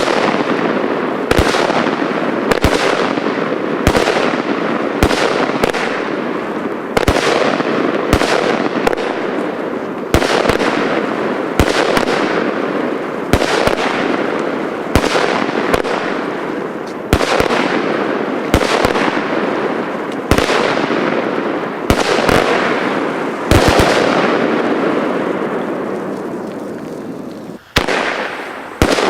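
Weco Godzilla fireworks battery firing shot after shot, about one a second, each a sharp bang followed by a fading rush of sound. There is a short lull near the end before the bangs start again.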